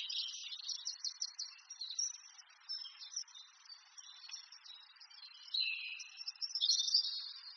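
Small birds chirping and trilling: quick repeated notes with short, fast trills, loudest about a second before the end.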